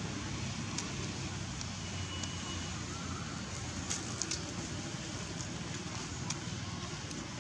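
Steady outdoor background noise with a low rumble, broken by a few short sharp crackles and clicks, a small cluster of them about four seconds in.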